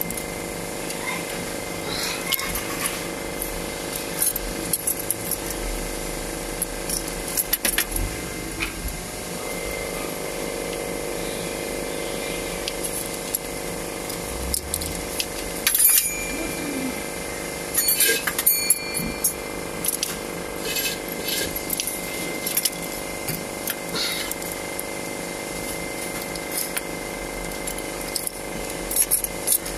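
Scattered metallic clinks and clicks of hand tools and fittings as lines are fitted to a diesel injection pump, busiest about halfway through, over a steady background hum.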